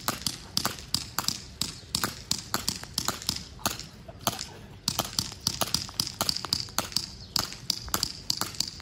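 Airsoft guns firing in a rapid exchange: a steady run of sharp cracks, several a second, from two players shooting at each other.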